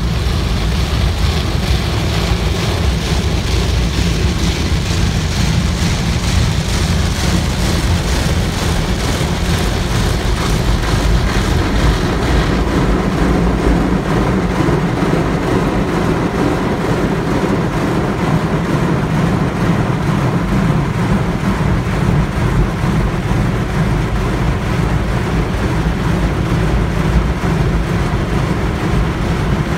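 High-pressure water jets of a touchless automatic car wash spraying onto the car's windshield and body, heard from inside the cabin: a loud, steady rush of water with a deep rumble underneath. About twelve seconds in the hiss loses some of its top edge.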